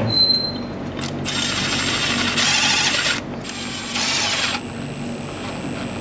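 Milwaukee M12 cordless power tool running in two spells, about two seconds from a second in, then a short burst near four seconds, driving in the screws that hold the intake piece and its spacers down on a Cummins diesel engine.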